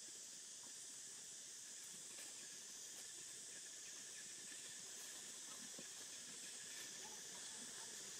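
Faint, steady high-pitched hiss of outdoor ambience, with a few faint soft ticks.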